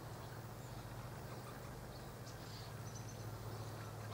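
Quiet outdoor ambience: a steady low hum with a few faint, short, high bird chirps scattered through it.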